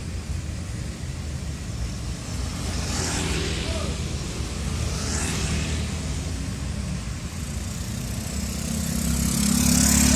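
Road vehicles passing: a steady low engine rumble with the rush of vehicles going by about three seconds in, again about five seconds in, and loudest near the end.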